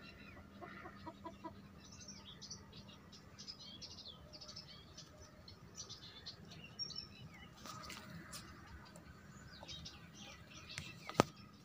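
Small birds chirping faintly and continuously, many short high chirps. There are a few light ticks, and one sharp click near the end.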